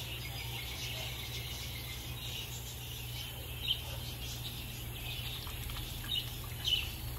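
Outdoor insect and bird chorus: a steady high chirring with a few short bird chirps, one about halfway through and two close together near the end, over a low steady hum.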